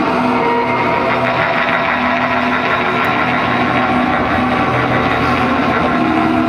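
Show soundtrack of a projection show played over loudspeakers into an open square: a loud, dense wash of held tones over a steady rushing noise, with no clear beat.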